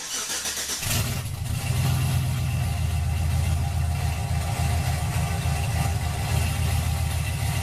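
Chevrolet 5.3-litre LS V8 with a Texas Speed stage 2 cam, ported heads and aftermarket headers, turning over and catching about a second in, then idling steadily with a pulsing beat on a freshly changed idle tune.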